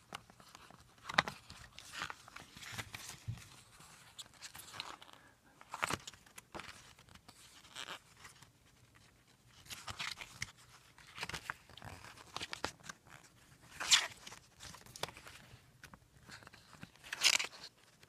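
Pages of a small glossy booklet being turned by hand: intermittent paper rustles and flicks, with several louder page flips spread through and the loudest near the end.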